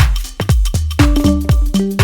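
Electronic dance background music with a steady kick-drum beat and sustained synth notes.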